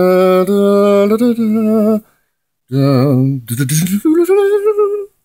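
A man's voice holding long, drawn-out notes with no clear words: one steady note for about two seconds, then after a short pause a run of wavering notes with a rising slide in the middle.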